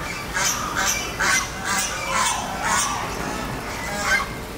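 Tiger calling: a run of short, hoarse calls about every half second, then one more near the end.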